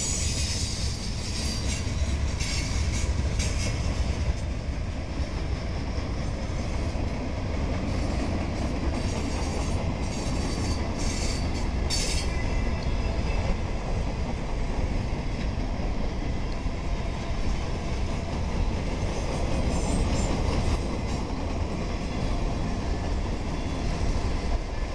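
Freight train boxcars and covered hoppers rolling past: a steady low rumble of steel wheels on rail. Brief sharp high sounds from the wheels come a few times, about three seconds in and again around ten to twelve seconds.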